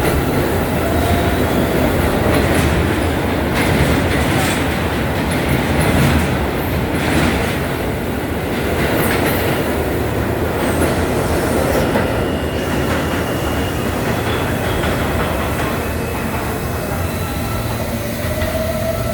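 New York City subway train running along the track: a steady rumble with wheels clicking over rail joints and a faint wheel squeal near the start and again near the end.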